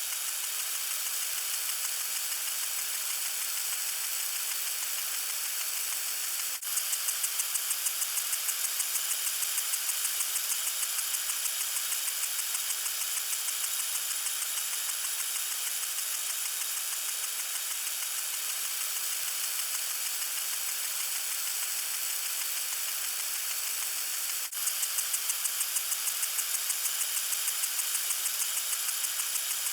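Water sprinkler spraying: a steady hiss of water. About six and a half seconds in, and again near the end, it dips briefly and then carries on with a fast, regular pulsing.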